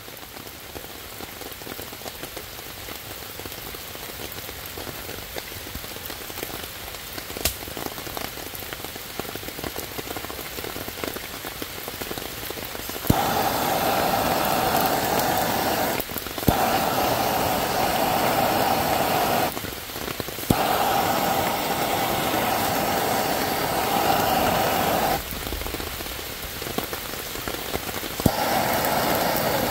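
Steady rain for about the first thirteen seconds, then a hand-held gas torch starts up suddenly and blows its flame into wet kindling with a loud, steady rushing hiss. The hiss drops out briefly twice and eases off for a few seconds near the end before coming back.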